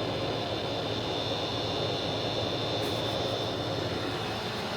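Steady background hum and hiss from a running machine, with a faint high whine, unchanging throughout.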